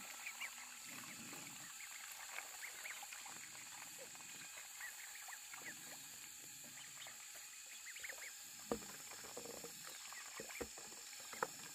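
Faint outdoor animal sounds: many short, high chirps scattered throughout over a steady high hiss, with a few sharp knocks.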